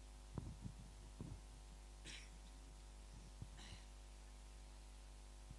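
Near silence: a steady electrical hum, with a few soft low knocks and two brief faint hisses.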